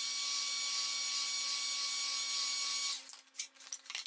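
Electric heat gun blowing hot air onto coroplast to fuse a patch: a steady hiss with a faint whine that stops abruptly about three seconds in. A few soft knocks follow as a wooden board is laid and pressed on the joint.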